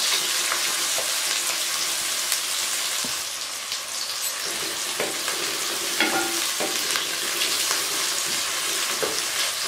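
Sliced onions sizzling as they fry in hot oil in a metal kadai, with a wooden spatula stirring them and scraping and knocking against the pan now and then.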